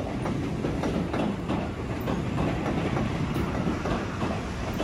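Keihan electric train running, with its wheels clattering over rail joints in a rough, uneven rhythm over a steady rumble.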